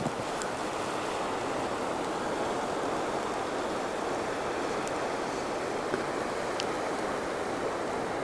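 Steady, even rush of a creek's flowing water, with a few footsteps crunching in snow right at the start.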